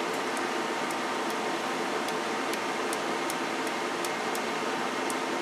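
CB radio receiving on single sideband: a steady hiss from its speaker with a faint steady tone in it, and light ticks about twice a second while the clarifier is turned. The received signal is off frequency.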